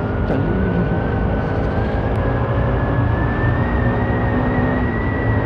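Bajaj Pulsar RS200's single-cylinder engine running at a steady road speed, with wind rushing over the microphone. A thin whine rises slowly in pitch.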